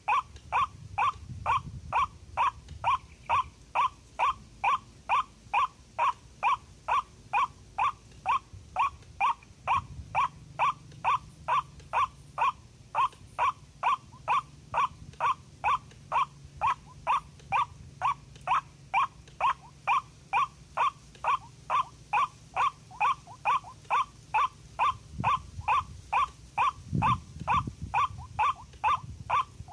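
White-breasted waterhen call: one harsh note repeated over and over in a steady, unbroken rhythm of about two and a half calls a second. A couple of low thumps come near the end.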